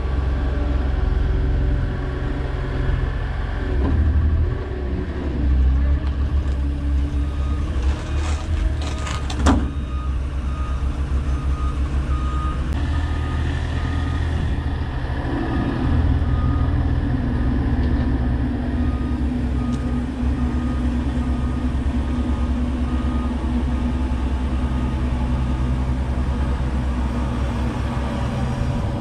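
A heavy vehicle's engine running and revving up and down, with a backup alarm beeping about once a second from about eight seconds in. A few sharp metal clanks come around eight to nine seconds in.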